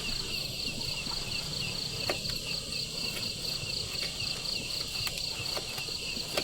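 Night insects, likely crickets, chirping in an even, fast-pulsing chorus, with a few faint clicks.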